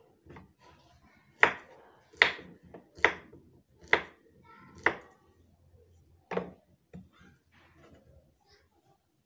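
A knife slicing a banana on a wooden cutting board, the blade knocking sharply on the board six times, a little under a second apart, with a few softer taps after.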